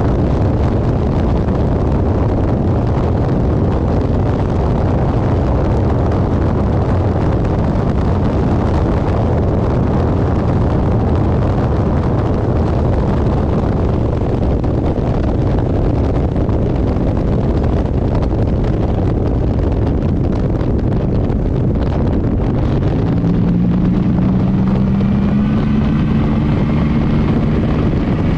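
Race car's GM engine running on track under load, with heavy wind and road noise. Its note climbs steadily from about 23 seconds in as the car accelerates.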